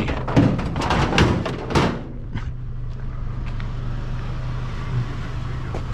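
Vehicle engine running steadily with a low hum, under a short burst of knocks and handling noise in the first two seconds, then a few light clicks.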